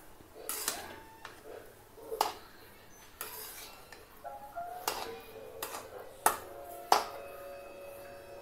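Metal spatula stirring and scraping coarse semolina roasting in ghee in a steel kadhai, with sharp clinks as it knocks against the pan about five times.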